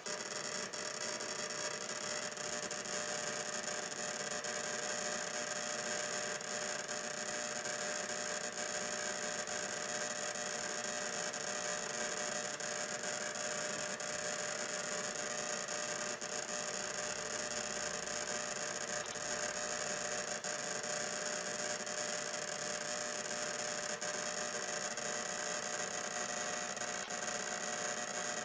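Steady hiss of static with constant electrical hum tones running through it.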